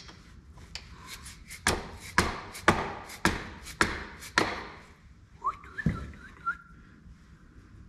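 Six sharp knocks on a hard object, about half a second apart, followed by a short high squeal or whistle that rises in pitch.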